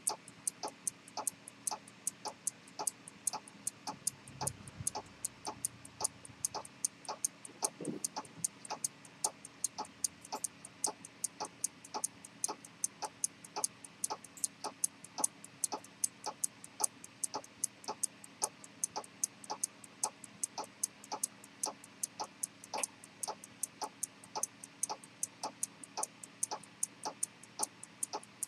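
Steady, even ticking of a c1890 pocket chronometer's detent escapement running. There is a brief low thump about four to five seconds in.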